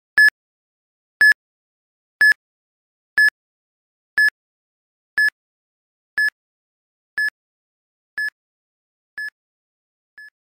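Electronic countdown-timer beeps, one short high beep each second, eleven in all, ticking off a ten-second answer countdown. Each beep is a little softer than the last, and the final one near the end is short and faint.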